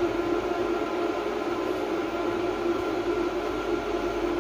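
A steady electrical hum: a constant pitched drone over an even fan-like rush, with no change in pitch or level.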